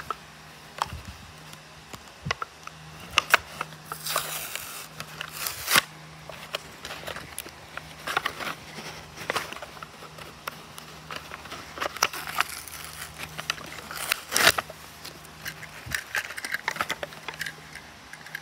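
Toy blister packaging being opened by hand: stiff clear plastic crackling and clicking, and the cardboard backing scraping and tearing. Louder bursts come about four to six seconds in and again about fourteen seconds in.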